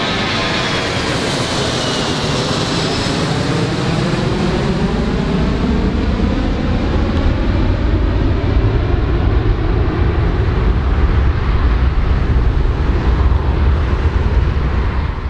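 Four-engine jet airliner climbing away after takeoff, its engines running with a steady roar. A high whine glides down in pitch in the first few seconds, and a deep rumble grows louder in the second half.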